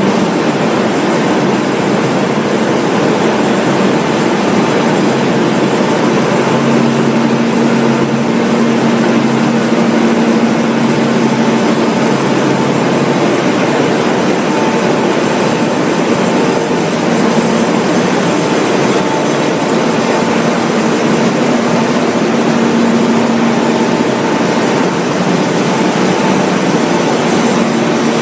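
Salt-processing plant machinery running: a loud, steady mechanical din, with a low hum that rises out of it now and then.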